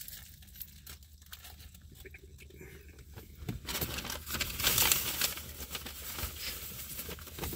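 Paper burger wrapper crinkling and rustling as a fast-food cheeseburger is handled and bitten into. It is quiet with a few faint clicks at first, and the rustling is loudest about four to five seconds in.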